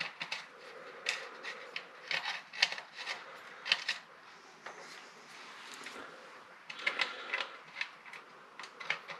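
Magazine tube cap of a pump-action shotgun being screwed on by hand: irregular small clicks and scraping of the threads and parts, in short clusters every second or so.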